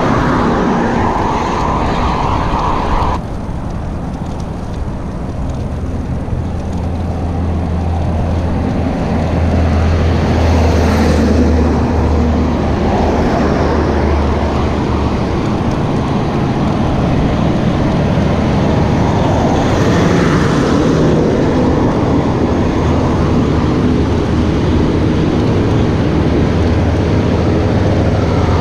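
Highway traffic passing a moving bicycle: cars and trucks driving by, with wind rushing over the camera microphone. A truck's low, steady engine drone stands out from about eight to fifteen seconds in and again near the end.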